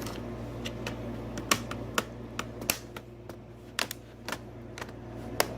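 Irregular sharp plastic clicks and taps, about a dozen, from the keyboard top case of an ASUS X540SA laptop being handled and pressed onto its base during reassembly.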